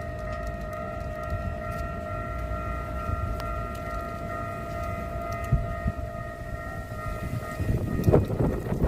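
Railway level-crossing warning alarm sounding a steady, unbroken tone rather than the usual bells, cutting off near the end. A loud, rushing rumble follows in the last second.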